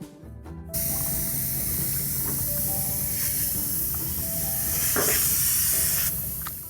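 Paint spray gun hissing steadily with compressed air, a loud airy hiss that starts about a second in and cuts off near the end.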